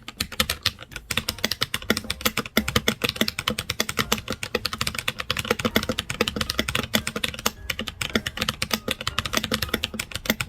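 Fast, continuous typing on a Keychron K6 compact mechanical keyboard: a dense run of clacky, clicky key strikes, many each second.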